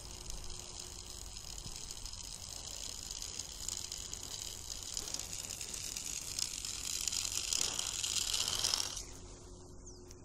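A fishing lure and line being reeled in across thin lake ice, sliding over the surface with a steady high hiss. The hiss grows louder as the lure nears and cuts off suddenly about nine seconds in.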